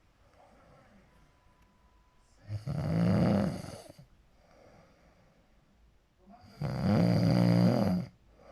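Snoring really hard: two long, loud snores about four seconds apart, each lasting about a second and a half.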